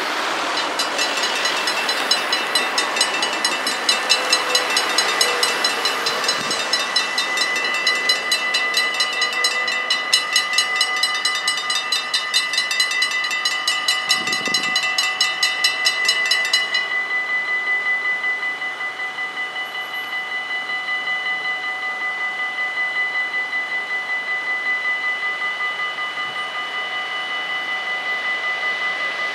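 Mechanical bells of a Dutch automatic level crossing ringing continuously in an even pulse as the barriers come down. About seventeen seconds in the higher-pitched ringing stops abruptly and the lower bell tone keeps ringing. Cars pass over the crossing near the start.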